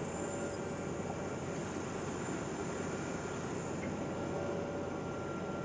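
Wirtgen 210Fi cold milling machine at work, its cutting drum grinding asphalt over the steady drone of its diesel engine: a dense, even noise that holds steady.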